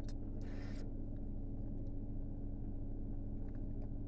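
Steady low electrical hum, with a brief scrape about half a second in and a few faint light clicks, as of small engine parts being handled.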